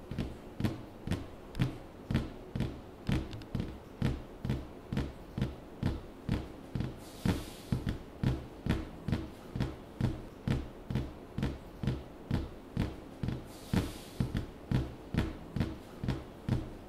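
A steady beat of short, low knocks, about two a second, with two soft hissing swells, about seven and thirteen seconds in.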